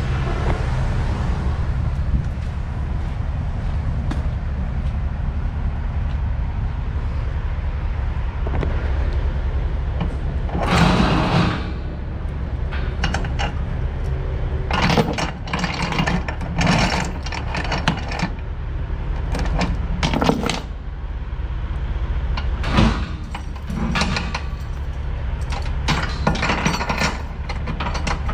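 Steel load chains clinking and rattling in bursts as they are pulled over the load and dropped onto the trailer deck, starting about ten seconds in. A steady low hum runs underneath.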